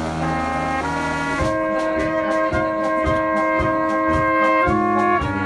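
Small Bohemian-style brass band with drum kit playing a polka: a held chord at first, then about one and a half seconds in the steady beat of bass and drum comes back in under long held melody notes from two standing trumpets.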